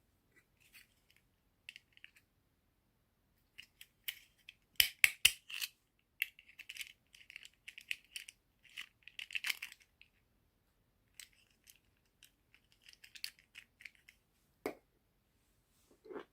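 Toy packaging and small plastic pieces being handled close up: irregular crinkling rustles and sharp plastic clicks, with a cluster of the loudest clicks about five seconds in.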